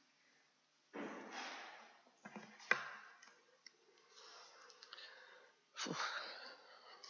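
Handling noises at a lectern microphone: bursts of rustling, a few clicks with one sharp click just under three seconds in, and a second, louder rustle near the end.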